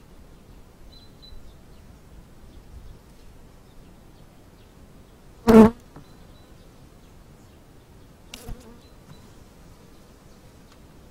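Honeybees humming over an opened hive. A loud brief sound comes about halfway through, and a fainter short one about three seconds later.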